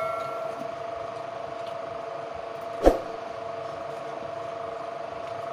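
The ringing of a struck steel dish fades out at the start. A single sharp knock follows about three seconds in, over a steady faint hum.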